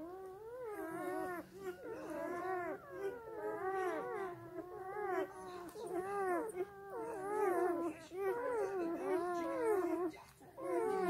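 Newborn German Shepherd puppies whining and whimpering almost without pause while they nurse: many overlapping high calls that slide up and down in pitch.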